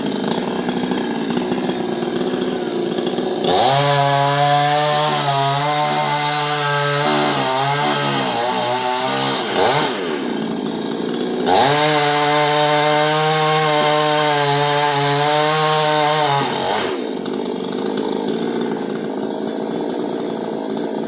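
Chainsaw cutting a coconut palm trunk: the engine is opened up to full revs for two long cuts, about three seconds in and again near the middle, each lasting five or six seconds. The pitch wavers under load during the first cut, and the saw drops back to a lower running sound between and after the cuts.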